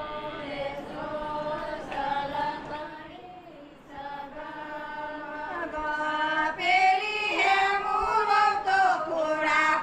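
A group of voices singing together, dipping a little about a third of the way in and then swelling louder.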